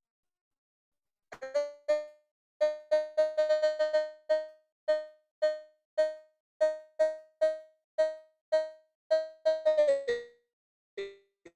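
Keyboard with a piano-like sound striking one note over and over, at an uneven pace with a quick run of strokes a few seconds in, then a couple of lower notes near the end.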